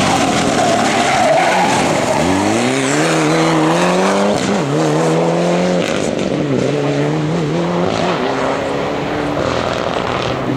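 Rally car, a Mitsubishi Lancer Evolution, accelerating hard out of a corner. The engine revs climb and drop back at each gear change, several times a couple of seconds apart, then the sound levels off and fades as the car pulls away.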